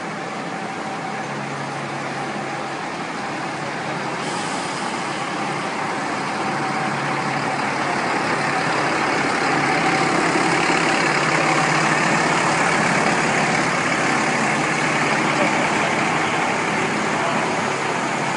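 Alexander Dennis Enviro 500 MMC double-decker bus moving slowly past at close range, its engine and running noise swelling until about two-thirds of the way through, then staying loud.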